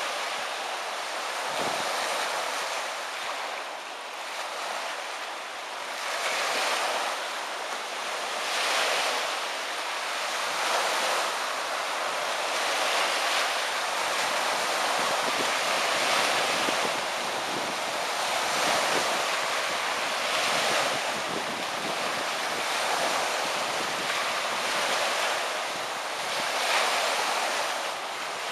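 Lake Michigan waves washing in, a steady rushing that swells and eases about every two seconds, with wind blowing on the microphone.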